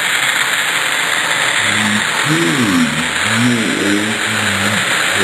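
Steady sizzling hiss of food frying in a pan, with a low voice talking under it from about two seconds in.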